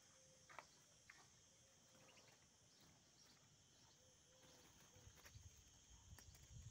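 Near silence: faint outdoor ambience with a couple of soft clicks in the first second or so, and low rumbling from handling the phone from about five seconds in.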